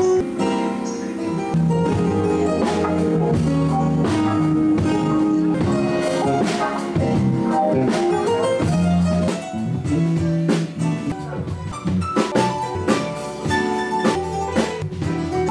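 Live band playing: electric guitar and bass guitar over a drum kit.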